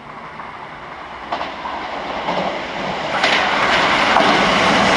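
Keisei 3600 series electric train approaching and running past, growing steadily louder. Its wheels clack over the rail joints, sharply just over a second in and twice more after three seconds.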